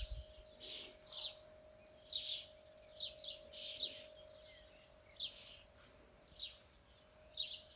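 Birds chirping, with short high calls repeated every half second to a second, over a faint steady hum from a distant motor or blower.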